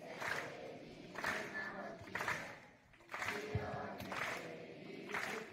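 A large group of schoolchildren chanting in unison, a loud group call about once a second in a steady rhythm.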